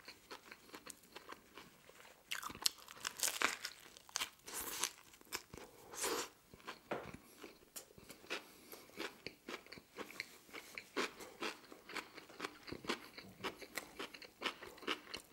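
Close-up chewing of a mouthful of deli sandwich with lettuce and pickles: a steady run of wet crunches, louder for a stretch from about two and a half to five seconds in and again around six seconds.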